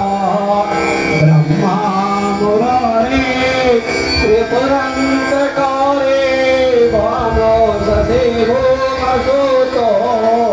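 Male voice singing a Sanskrit mantra in long, wavering melodic phrases with held notes, over a steady drone, amplified through a handheld microphone.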